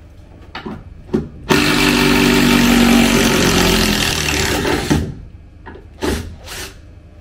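Cordless drill-driver running for about three and a half seconds, backing a screw out of the counter's chipboard front panel, with a few short knocks before and after.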